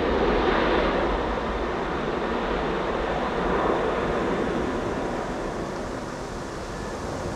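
Airbus A300-600 jet engines at takeoff power during the takeoff roll: a steady rushing noise that slowly grows fainter as the airliner moves away down the runway.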